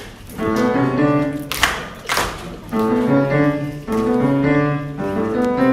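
Keyboard music: slow, held chords that move step by step. Two brief rustles cut across it about one and a half and two seconds in.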